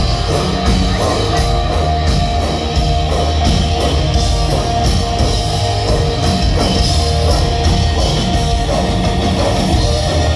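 Live Mongolian folk-metal band playing loud: a steady pounding drum beat with cymbals, distorted electric guitars and a bowed horsehead fiddle (morin khuur), heard from within the crowd.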